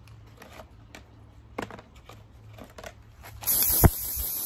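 Citadel Chaos Black aerosol spray primer hissing out of the can in one steady burst that starts about three and a half seconds in and cuts off sharply, after a few faint clicks.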